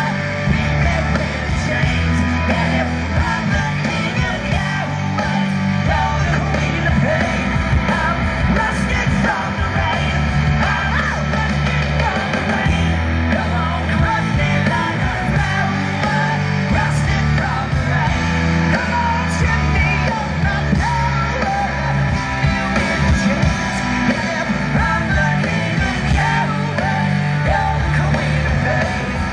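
Live punk rock band playing loud, with electric bass, guitar and drums under a male singer singing into a microphone.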